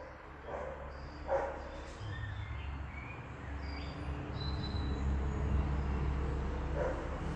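A Briard dog giving short single barks: two in the first couple of seconds and one more near the end. Birds chirp faintly, and a low vehicle engine rumble grows louder through the second half.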